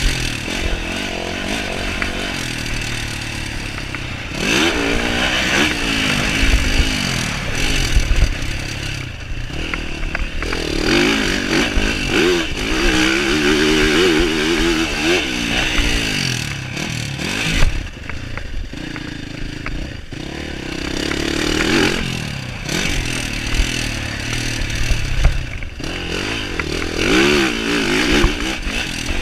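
Yamaha SR500's single-cylinder four-stroke engine being ridden hard, the revs climbing and dropping back again and again through the gears. Short knocks and rattles come through between the rev sweeps.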